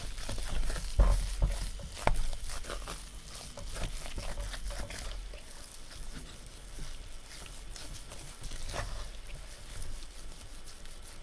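A spatula stirring, scraping and pressing thick sweet potato paste in a pan, making irregular soft clicks and scrapes, as the paste is cooked down to drive off its moisture. The loudest strokes come about one and two seconds in.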